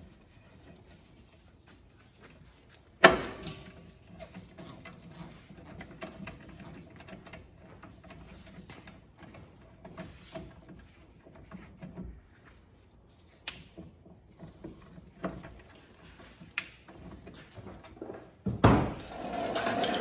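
Hand tools working on a brake caliper: a long ratchet loosening the caliper mounting bolts, with one sharp metallic click about three seconds in, then scattered light clicks and ticks, and a louder clatter near the end as the caliper comes free.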